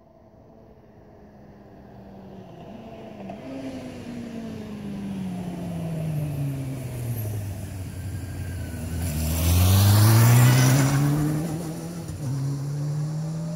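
A road vehicle's engine approaches, growing steadily louder. Its note falls as it slows, then climbs again as it pulls away. It is loudest about ten seconds in, with a rush of tyre and passing noise.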